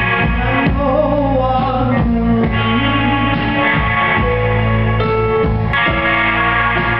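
A folk-rock band playing live, the electric guitar prominent, picked over steady low notes, with the harmony changing every second or so.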